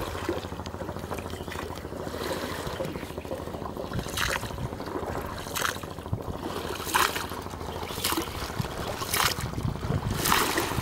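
A wooden oar paddling a small round boat, each stroke dipping and splashing into the water, about one stroke every second and a quarter from about four seconds in, over steady water noise.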